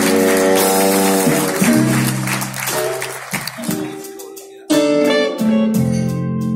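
Live jazz-blues band holding a chord that fades away. About two-thirds of the way through, an electric guitar starts up with sharp plucked chords that ring and decay.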